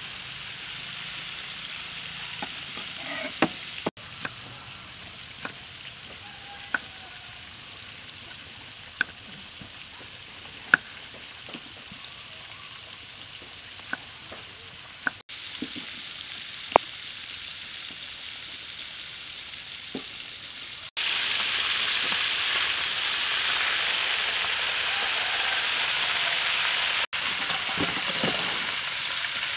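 Scattered sharp knife taps on a wooden chopping board as tomatoes are sliced. About two-thirds of the way in, this gives way to loud, steady sizzling of hot oil as a whole fish deep-fries in a wok.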